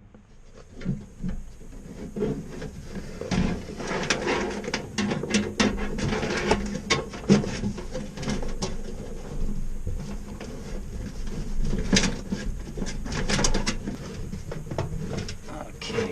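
Irregular clicks, knocks and rattles of computer hardware being handled, such as a PC power supply being worked out of or into its case.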